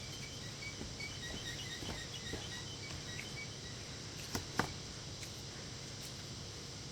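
Faint, short, high chirps over a steady background hiss during the first few seconds, then two sharp clicks in quick succession a little past four seconds in.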